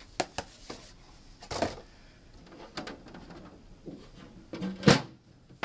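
Cardboard packing box being handled and set down: scattered rustles and light knocks, with one louder thump about five seconds in.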